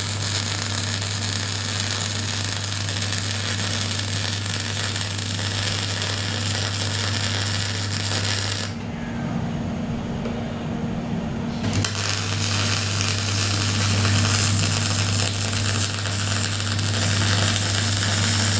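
Electric arc welding: a steady, dense crackle with a low hum from the welding set, in two runs with a break of about three seconds near the middle.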